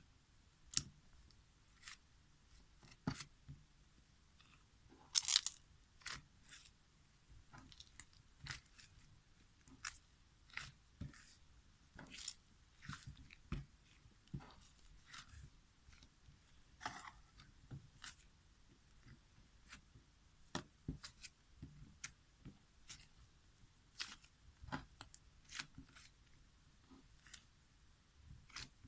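Slime being squeezed and poked by hand, giving faint, irregular crackles and sticky clicks, with a louder cluster of pops about five seconds in.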